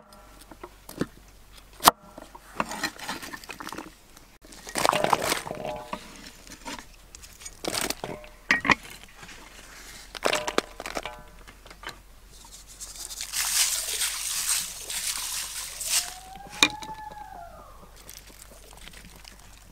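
Cooking prep handling: a couple of sharp knocks near the start, then scattered rustling and pattering as chopped shallots, lemongrass, spring onion and chilies are dropped and salt sprinkled over whole fish in a pan. A short rising-and-falling call sounds near the end.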